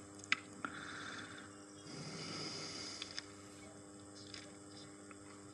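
Quiet room tone with a steady low hum, a few faint clicks and a soft rustle or breath now and then.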